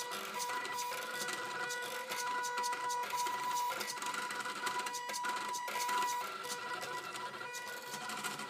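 Stepper motors in the salvaged CD/DVD-drive sleds of a homemade Arduino pen plotter whine in steady pitched tones as they step the pen across the paper. The whine breaks off and resumes as the axes stop and start, with many small clicks throughout.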